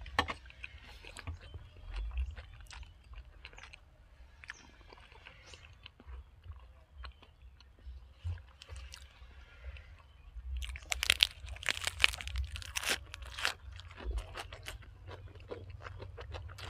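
A person chewing and crunching food close to the microphone, with a run of loud, crisp crunches about two-thirds of the way through.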